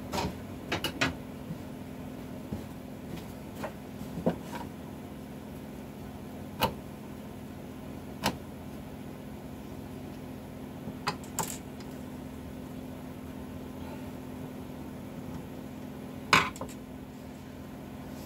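Scattered short clicks and knocks as screws are undone and a router template is taken off a solid wood guitar body, the loudest near the end, over a steady low hum.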